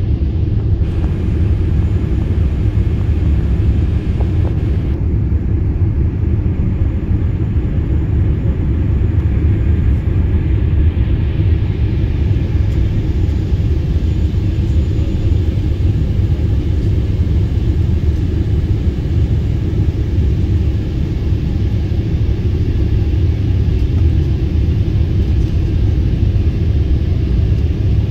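Airliner cabin noise heard from a window seat in flight: a steady, loud low rumble of the jet engines and airflow, with a fainter even hiss above it.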